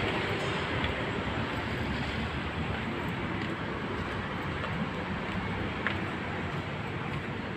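Steady wash of distant city road traffic, slowly fading, with a few faint taps.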